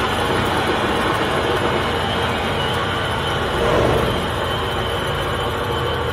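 Cessna 152's four-cylinder engine idling during the landing rollout, a steady drone heard from inside the cabin, with a brief swell about four seconds in.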